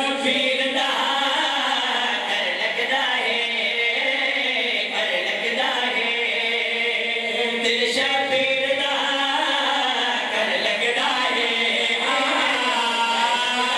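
Several men chanting a mourning lament together into a microphone, unaccompanied, in long sustained sung phrases.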